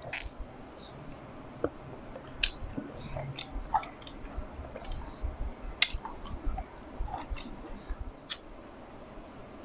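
Close-miked chewing of muscadine grapes, with many sharp mouth clicks scattered irregularly, dying away about 8 to 9 seconds in.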